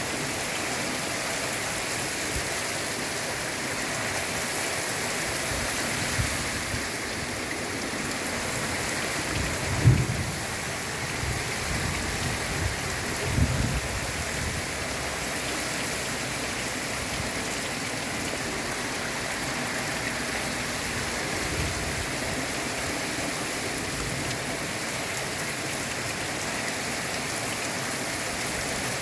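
Torrential rain pouring down steadily during a thunderstorm, with a few short low thumps, the strongest about ten seconds in and another a few seconds later.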